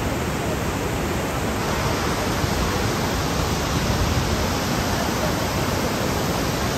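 Steady roar of the 83-metre Montmorency Falls, a constant rushing noise with no let-up; its hiss grows a little brighter about two seconds in.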